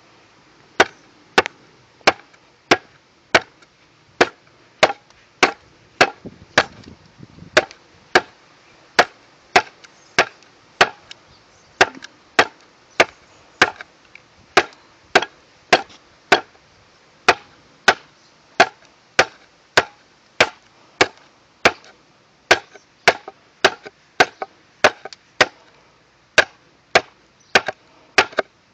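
TOPS Wolf Pup XL fixed-blade knife, a 1095 high-carbon steel blade, chopping into wood: a steady run of sharp chopping strikes, about three every two seconds.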